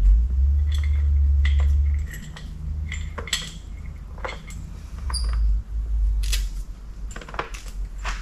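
Metal brake parts and hand tools clinking and knocking as they are handled and set down, with a low rumble for the first two seconds and again about five seconds in.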